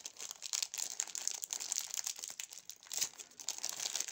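Clear plastic bag crinkling as it is handled: a steady run of irregular crackles.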